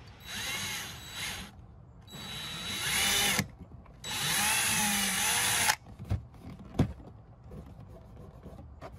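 Craftsman cordless drill running a very small bit into the plastic door card in three bursts, the motor whine rising and falling in pitch with the trigger, the last burst the longest. A few light knocks follow.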